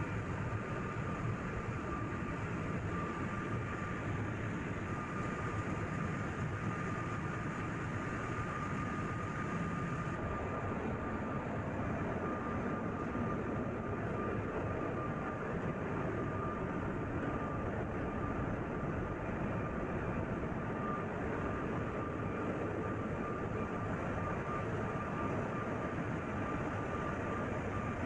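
Ship's engine-room machinery running steadily, a continuous mechanical noise with a steady high whine over it.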